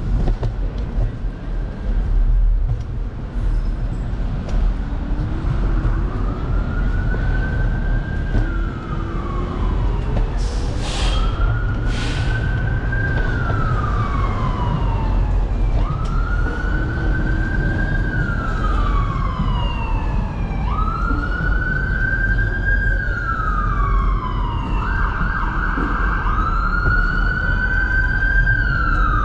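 Emergency vehicle siren wailing: a slow rise and fall in pitch repeating every few seconds, starting about five seconds in, with a second siren overlapping it near the end. A steady low street rumble runs underneath, with two short hisses about a second apart midway.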